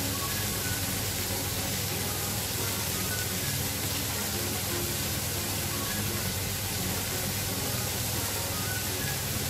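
Shrimp sizzling in oil on a very hot cast-iron sizzling plate: a steady hiss.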